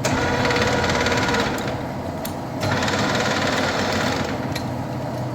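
1K625D screw-cutting lathe running steadily with a whirring, clattering gear-drive sound. Its higher clatter drops away twice, once for about a second, then comes back.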